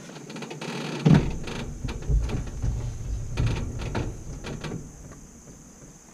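Knocks and clunks of a person climbing out over the side of a Polaris RZR side-by-side, boots and hands striking its bed and frame. The loudest knock comes about a second in, a few more follow over the next few seconds, and then it goes quiet.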